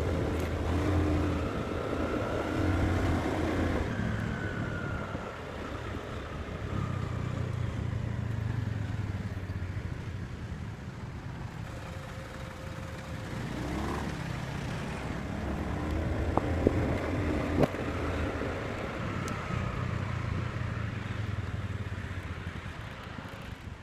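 Small motor scooter's engine running while riding, speeding up and easing off several times, with a whine that rises and falls each time.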